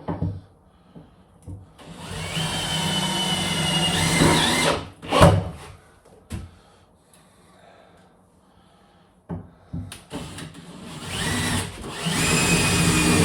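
Power drill-driver driving self-tapping screws, in two runs of about three seconds each with the motor whine rising slightly as each screw goes in. A sharp knock follows the first run.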